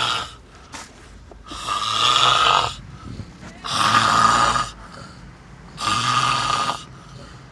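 A person snoring heavily and evenly, one long snore about every two seconds: three full snores, with the tail of another at the very start.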